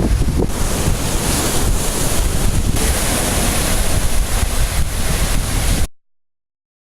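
Wind buffeting the microphone, a loud rushing rumble with no words, cutting off suddenly about six seconds in.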